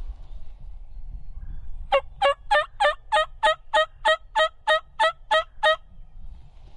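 A loud, close run of thirteen turkey yelps, evenly spaced at about three a second, each note falling in pitch.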